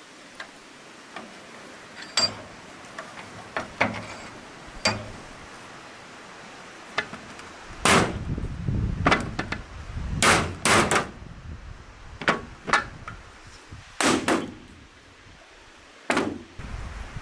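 Sawn beef marrow bones being handled and set down on a metal tray: a few faint clicks at first, then from about halfway a run of loud, sharp clunks of bone against metal.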